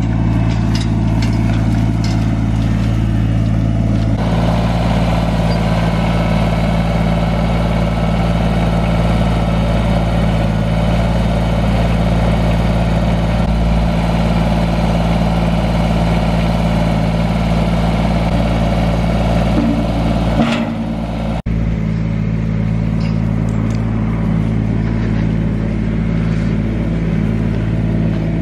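Kubota compact loader tractor's diesel engine running steadily under throttle. Its sound fills out about four seconds in, and it drops out briefly about three-quarters of the way through.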